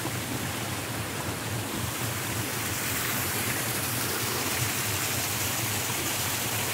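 Small mountain stream and waterfall: water rushing and splashing steadily over rocks, growing a little louder partway through.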